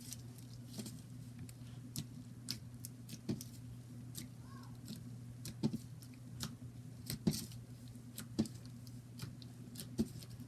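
Slime being stretched, poked and squished by hand, giving scattered soft clicks and pops at irregular intervals over a steady low hum.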